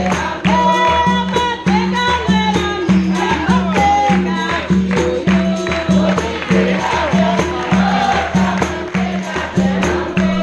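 Capoeira roda music: berimbaus and percussion keep a steady beat of about two strokes a second, with pandeiro jingles and hand claps, while the circle sings the chorus together.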